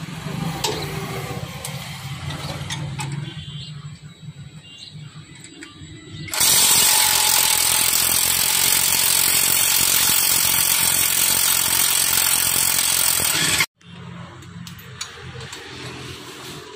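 Cordless impact wrench driving home a rotavator blade bolt: it runs loudly for about seven seconds, starting about six seconds in and cutting off sharply. Before it, quieter clinks of metal parts being handled.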